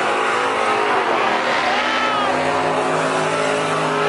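Pickup truck doing a burnout doughnut: the engine is held at high revs while the rear tyres spin on the pavement, with a short tyre squeal about two seconds in.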